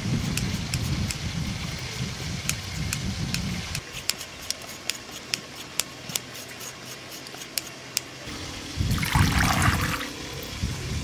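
Water splashing and dripping back into a steel pot as soaked glass noodles are lifted out and squeezed by hand, loudest near the end. A run of light clicks in the middle.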